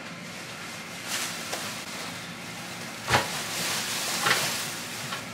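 Plastic shopping bags rustling as they are lifted and set down on a wooden table, with one sharp knock about three seconds in.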